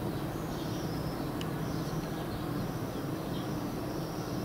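Birds chirping outside with short repeated call phrases over steady background noise.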